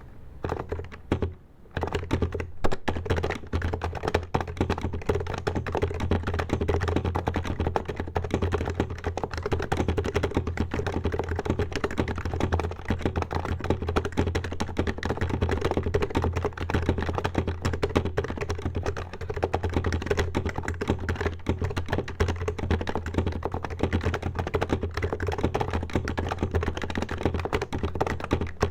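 Continuous fast typing on an HHKB Professional HYBRID Type-S keyboard with Topre electrostatic capacitive silent switches (45 g key weight). A few separate key presses come first, then a dense, unbroken stream of keystrokes from a couple of seconds in.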